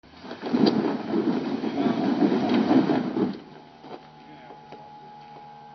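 Lifted Jeep Grand Cherokee's engine revving hard under load as it crawls up a rock ledge, then dropping about three seconds in to a much quieter steady low-rpm running with a faint tone.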